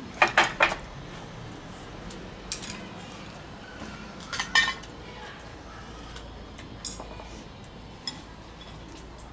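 Chopsticks and porcelain rice bowls clinking during a meal: a quick run of three sharp clinks at the start, then single clinks every second or two.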